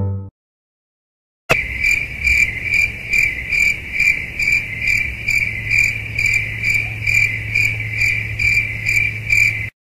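Crickets chirping in an even rhythm, about two or three chirps a second, over a low steady hum; they start a second and a half in and cut off abruptly just before the end. The dying tail of a brass note is heard at the very start.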